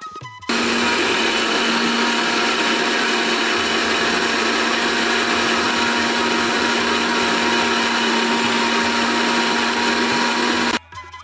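Electric mixer grinder running steadily with a constant hum, its steel jar grinding roasted peanuts, chilies and garlic into chutney paste. It switches on about half a second in and cuts off suddenly near the end.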